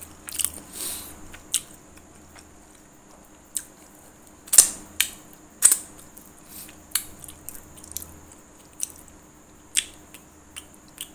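Close-up mouth sounds of a person eating with his fingers: wet lip smacks and clicks from chewing and licking food off the fingers, irregular, about a dozen, the loudest about halfway through.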